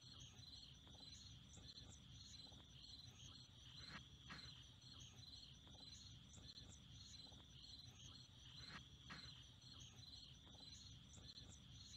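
Faint field ambience of insects chirping: a steady, even rhythm of short high-pitched chirps, about two to three a second.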